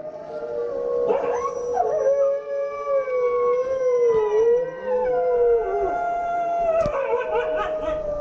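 Several canines howling together in long, overlapping howls at different pitches, each slowly wavering, with a few shorter broken cries mixed in.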